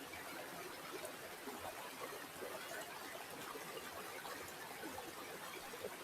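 Shallow stream water flowing and trickling over stones: a steady babble with many small gurgles.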